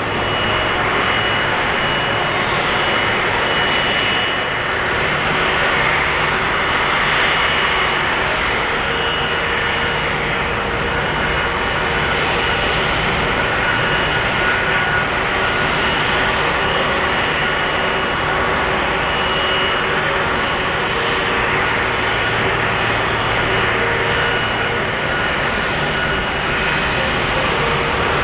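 Airbus A330-300's Rolls-Royce Trent 700 turbofan engines running at idle-to-taxi power as the airliner taxis: a steady rushing noise with a thin high whine that comes and goes.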